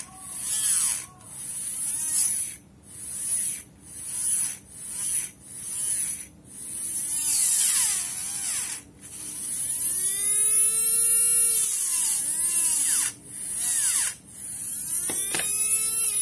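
A Tamiya Hyper-Dash motor spins a mini 4WD propeller shaft against a hand file with a high-pitched whine. It runs in short bursts about once a second, its pitch rising and falling each time, then in longer runs of a few seconds near the end as the plastic gear shaft is filed to a point.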